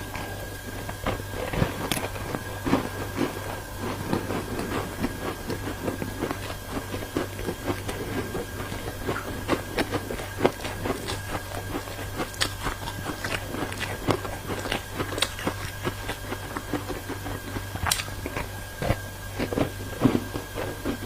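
Ice being bitten and chewed close to the microphone: many sharp, irregular crunches and cracks, over a steady low hum.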